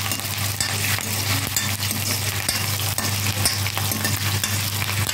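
Onion and curry leaves frying in hot oil in an iron kadhai, sizzling steadily with many small crackles and pops from the curry leaves, while a metal ladle stirs them round the pan. A steady low hum runs underneath.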